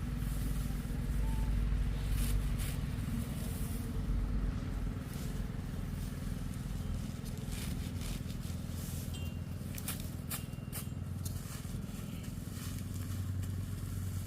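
Small motorbike engine running steadily, with scattered clicks and rattles over it.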